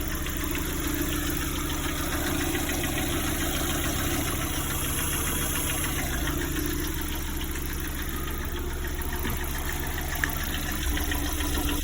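Lada Priora engine idling with a knock that comes on only once the engine has warmed up. The owner rules out the hydraulic lifters and suspects a piston knocking.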